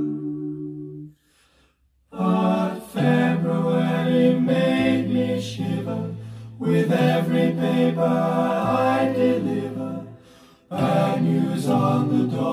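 Recorded vocal music, unaccompanied-sounding singing with long held notes, played through hi-fi loudspeakers driven by AGD Production Audion monoblock amplifiers. It pauses briefly about a second in, then the voices come back in and the music carries on with a couple of short lulls.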